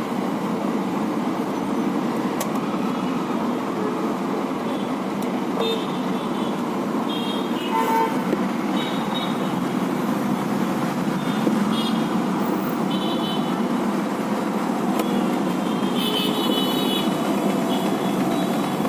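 Steady road traffic noise with short, repeated high horn toots.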